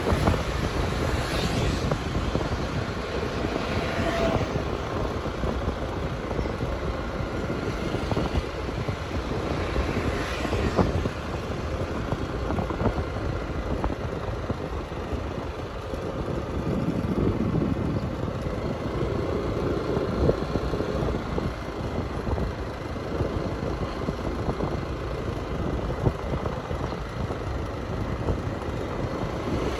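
Steady vehicle noise heard from a vehicle moving along a street: a constant rumbling mix of engine and road noise.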